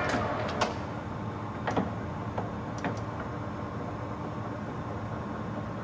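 Clausing Colchester engine lathe running with a steady low hum from its geared headstock. A handful of sharp clicks and knocks come in the first three seconds as the speed-selector dial and levers are handled.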